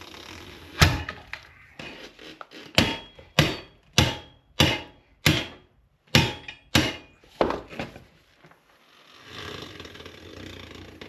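Hard knocks from working a skid steer tire off its rim on a manual tire changer: one loud strike about a second in, then a run of about eight evenly spaced knocks, nearly two a second, each ringing briefly.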